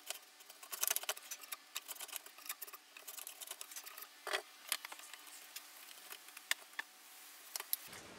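Hand router plane shaving the floor of a mortise in pine, a run of small, irregular scrapes and ticks.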